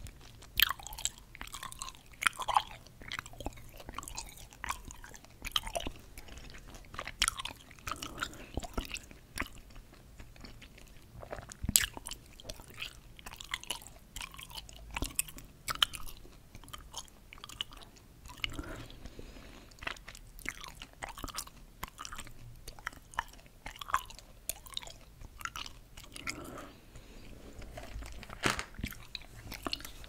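Close-up chewing of coated gum pellets: irregular wet clicks, smacks and crunches, with a sharper crack about twelve seconds in.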